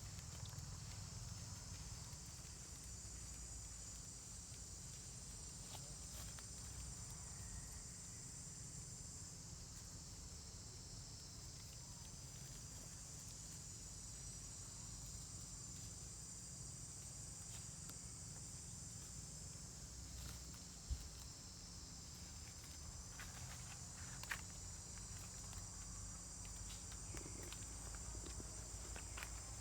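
Faint, steady high-pitched trilling of insects, over a low hum. Two short sharp knocks come about two-thirds of the way through.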